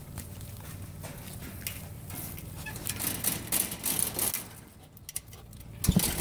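Chain-link kennel fence rattling and scraping as a pit bull jumps up and paws at the wire, with a run of clattering clicks in the middle. There is a heavy thump near the end.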